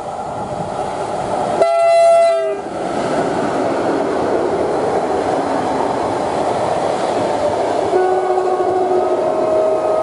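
SM42/SU42-family diesel locomotive sounding one short horn blast about two seconds in, then the engine and the wheels of its double-deck coaches running past with a steady loud rush and clatter. Near the end a steady high whine joins the passing train.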